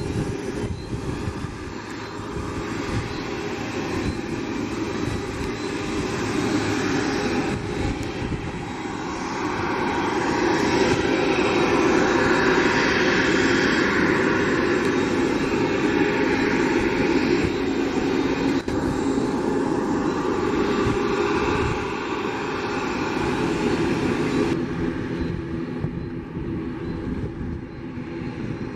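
Boeing 737 MAX 8's CFM LEAP-1B turbofan engines running as the airliner taxis, a steady engine noise that swells about a third of the way in. Near the end the sound changes abruptly to a quieter, more distant engine noise.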